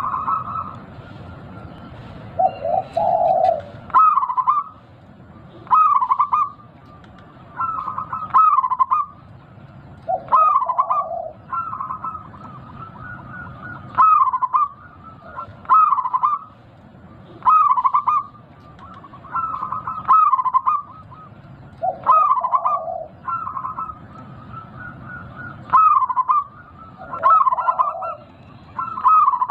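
Zebra dove (perkutut) cooing its song, short looping phrases repeated about every two seconds. A few phrases carry a lower note.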